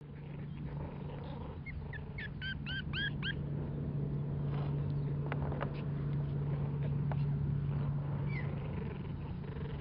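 Norwich Terrier puppies whimpering: a quick run of short, high squeaks about two seconds in and one more near the end. A steady low hum runs underneath, with a few faint clicks midway.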